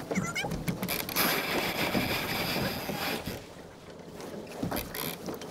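Melges 24 sailboat tacking: a noisy rush of flapping sail and running lines from about a second in, lasting some two seconds, with scattered clicks and wind on the microphone.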